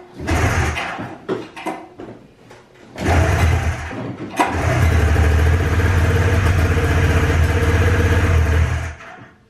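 1993 Polaris Indy XLT's three-cylinder two-stroke snowmobile engine being pull-started on choke: a brief sputter, then it catches about three seconds in and runs steadily. It dies near the end when the choke is switched off, so it will only run with the choke on.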